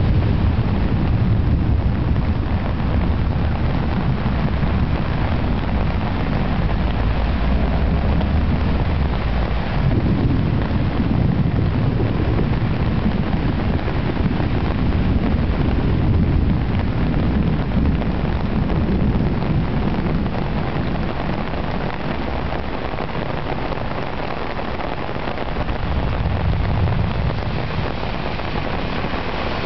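Torrential rain pouring steadily, with wind buffeting the microphone and cars swishing through floodwater on the road.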